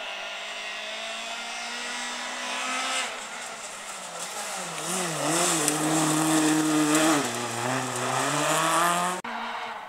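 Rally car engine at high revs on a gravel stage, its pitch dipping and climbing again and again with gear changes and lift-offs as the car comes through, growing louder towards the end with a high hiss on top, then cutting off suddenly about nine seconds in.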